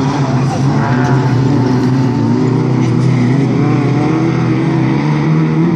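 Several hot rod race cars' engines running hard around a dirt oval track. Their overlapping notes rise and fall in pitch as the cars accelerate and ease off.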